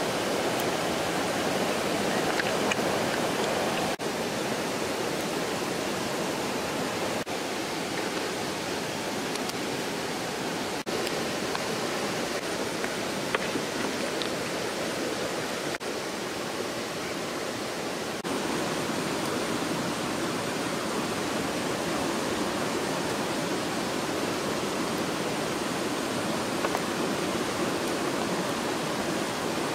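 Hot oil sizzling steadily in a pan as egg-battered fish pieces deep-fry.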